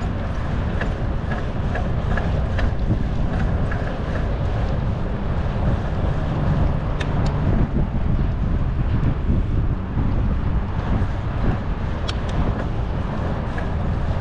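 Wind buffeting the microphone of a moving bicycle as a steady rumble, with two sharp clicks, one about halfway through and one near the end.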